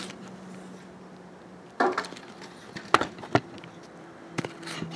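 Camera being handled and clamped onto a tripod: a few sharp knocks and clicks over a faint, low steady hum.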